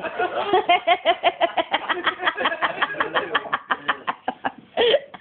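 A person's voice making a rapid, even run of short sounds, about eight a second, that fades out about four and a half seconds in.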